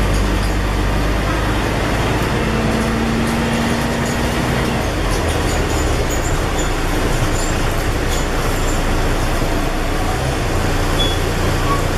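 Scania N113 bus heard from inside while under way: a steady diesel engine drone mixed with road and body noise. About two seconds in, a held hum rises above it for around two seconds.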